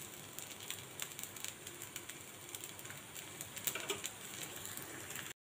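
Faint sizzling of a jackfruit dosa cooking on a hot cast-iron tawa, with scattered small crackles. It cuts off suddenly near the end.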